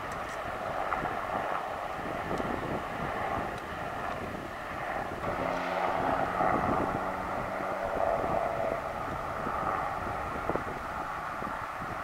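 Two Westland Sea King Mk41 helicopters in flight, a steady mix of rotor and turbine noise with a faint whine, growing somewhat louder mid-way.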